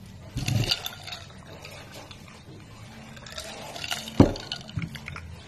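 Wet clicks and squelches of a sauce-coated whole buttered shrimp being handled and pulled apart by hand for eating, with one sharp crack a little after four seconds.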